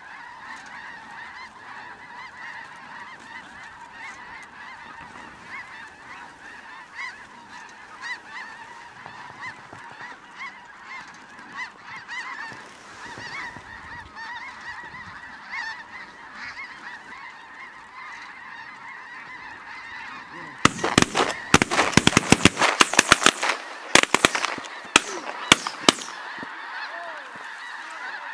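A large flock of snow geese calling overhead, a dense, unbroken chorus of high honks. About two-thirds of the way through, a rapid run of loud sharp cracks lasts about five seconds, then the honking carries on alone.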